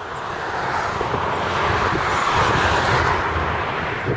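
A passing vehicle: a rushing noise over a low rumble that swells to a peak about two and a half seconds in, then eases off.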